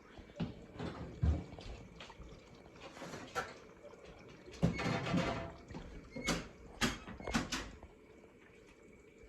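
LG dishwasher beginning its cycle: water splashing and sloshing inside the tub, with scattered clicks and knocks. A louder burst of splashing comes about halfway, followed by a few sharp knocks.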